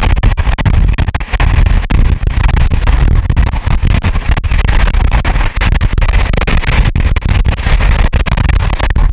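Loud rushing and rumbling of two trains passing each other at speed, heard from the open side of a moving train, with wind buffeting the microphone.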